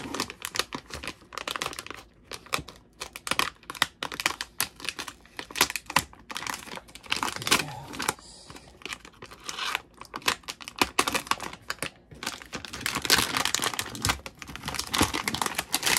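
Plastic bag wrapped around a circuit board crinkling and crackling as it is cut and pulled open by hand, in irregular bursts that thicken a few seconds before the end.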